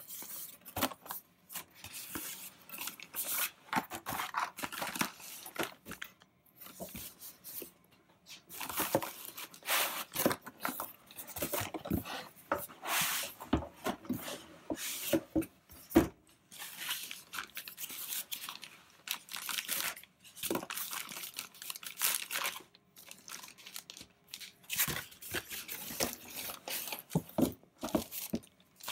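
Cardboard box inserts and foam packing pieces being handled and pulled out of a shipping box: irregular rustling, scraping and crinkling, in short spells with brief pauses between them.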